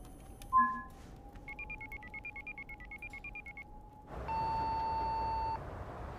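Laptop video-call software tones as a call is placed: a short loud beep about half a second in, then a quick run of bleeping tones of changing pitch, then a steady held tone for about a second and a half near the end.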